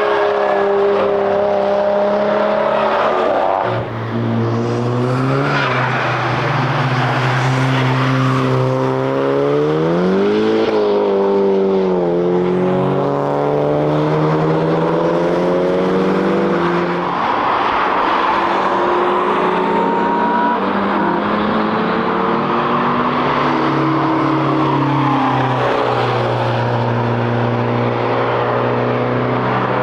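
Cars at speed passing one after another, engines revving up and falling back through gear changes, the pitch swelling and dropping as each goes by.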